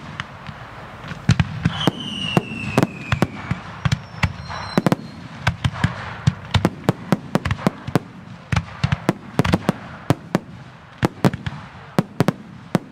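Fireworks display with aerial shells and effects bursting overhead: rapid, irregular bangs and reports, several a second at times, with a falling whistle about two seconds in.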